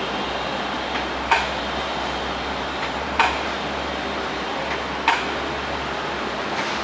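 Sharp clicks repeating evenly about every two seconds over a steady low machine hum.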